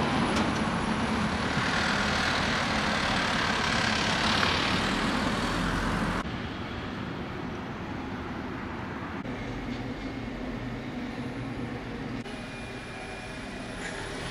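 Street traffic noise: a loud, steady rush of passing vehicles for about six seconds, then, after an abrupt change, a quieter steady traffic hum.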